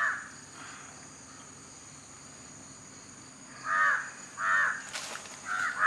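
A crow cawing: two short harsh caws a little before four seconds in and more near the end, over a steady high-pitched drone of insects.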